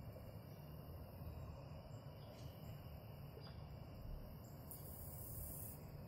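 Faint outdoor ambience: a low rumble under a steady, thin, high insect drone, with a brief hiss near the end.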